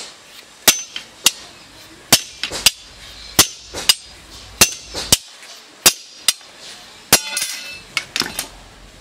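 Small hammer striking a flat steel sword blank on a railway-rail anvil: sharp, ringing metal taps at an uneven pace, about one or two a second. Around two thirds of the way in there is a short clattering rattle of steel blanks as one is put down and another picked up.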